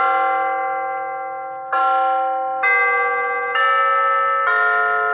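Hampton Bay wireless doorbell chime playing one of its chime tunes: a run of bell-like notes at different pitches. Each note is struck and rings on, fading slowly, with the next note coming about a second later.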